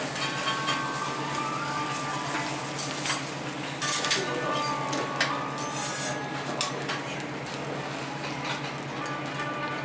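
Metal teppanyaki spatulas clinking and scraping on the iron griddle: irregular sharp clinks, busiest around the middle, over a steady low hum.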